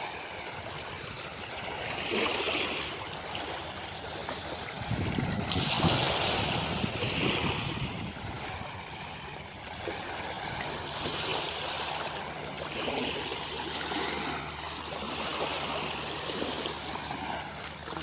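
Small waves washing up a sandy shore at the water's edge, the rush of surf rising and falling every few seconds, with a louder surge about five seconds in.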